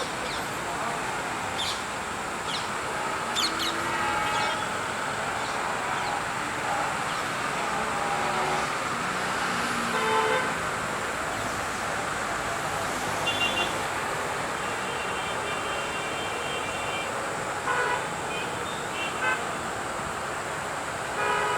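Steady traffic noise with several short vehicle horn toots from about ten seconds in, one of them held for about two seconds.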